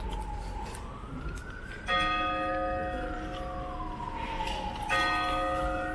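A large bell strikes twice, about three seconds apart, each stroke ringing on. Under it a siren wails slowly up and down.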